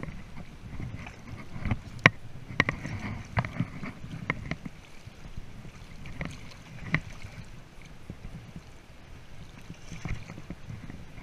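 Water sloshing and splashing around a landing net held in a shallow river current, with irregular sharp splashes and knocks now and then, the loudest about two seconds in.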